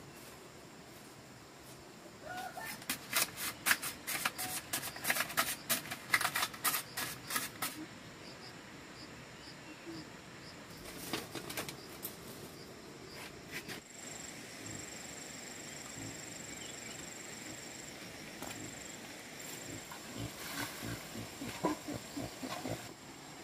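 Firewood and bamboo sticks being handled and fed into an open wood fire: a quick run of sharp cracks and knocks a few seconds in, then scattered crackles and knocks. A steady high-pitched tone comes in about halfway through.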